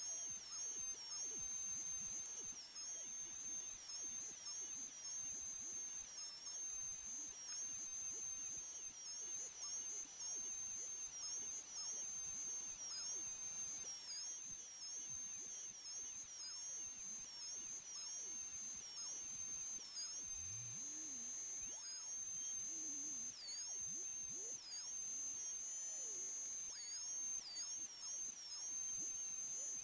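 BITEC trim router working as a CNC router spindle, running at high speed with a steady high-pitched whine while it cuts lettering out of HPL-laminated 3 mm MDF. The whine dips briefly in pitch again and again.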